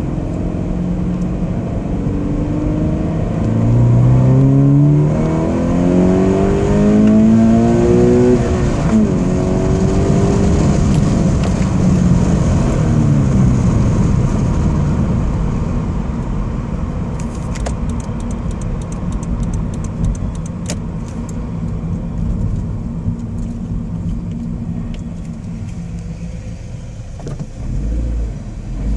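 Scion FR-S's 2.0-litre flat-four engine and exhaust, heard from inside the cabin, pulling hard with its note rising in pitch for several seconds, then settling into a steady cruise and easing off as the car slows near the end. It runs the stock exhaust with a catless front pipe.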